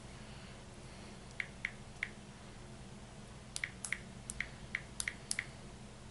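Calculator keys being pressed to add up prices: a run of short, sharp clicks. Three come spaced out about a second and a half in, then about ten more follow in quick succession from about three and a half seconds in.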